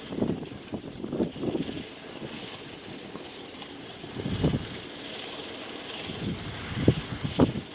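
Wind buffeting the microphone in irregular gusts, the strongest about four and a half, seven and seven and a half seconds in, over a steady background hiss.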